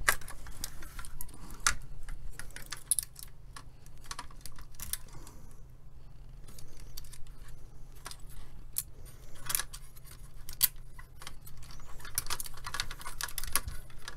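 Irregular clicks, clinks and rattles of metal chassis parts, wires and circuit boards being handled as the front panel assembly of a Farnell ET30/2 power supply is worked free, with a short lull about halfway through. A low steady hum sits underneath.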